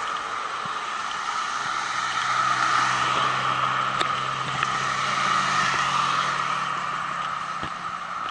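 Steady rushing noise with a low, even engine hum that starts about a second and a half in and stops just before the end.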